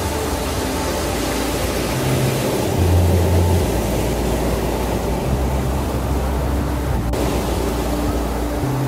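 Slow ambient background music: low held bass notes that change every second or two under fainter sustained higher tones, over a steady rushing wash of ocean surf.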